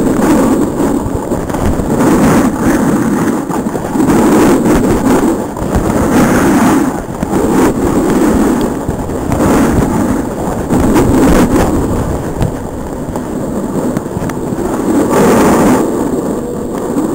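Wind buffeting a helmet-mounted camera's microphone during a fast run down a snow slope, mixed with the scrape of the board over the snow. The rushing noise swells and fades roughly every second or so.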